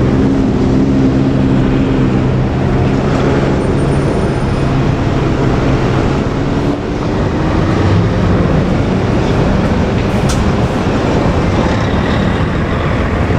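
A train running close by: a loud rumble with a steady multi-tone hum that fades after about five seconds, then a hum rising slowly in pitch through the second half, with one sharp click about ten seconds in.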